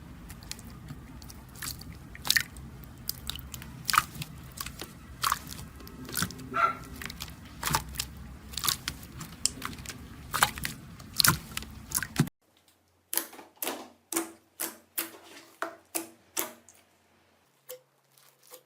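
Slime being squeezed and pressed, giving sharp crackling pops, with a low hum behind them. About twelve seconds in the hum stops suddenly and the pops go on, more evenly spaced, two or three a second.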